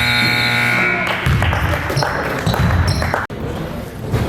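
Gym scoreboard buzzer sounding one long steady tone that cuts off about a second in, followed by a basketball bouncing amid gym noise.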